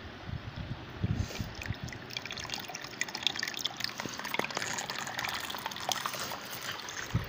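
Water splashing and trickling as a small homemade submersible pump shoots a jet up out of a plastic basin and it falls back onto the water surface. A few low bumps come about a second in.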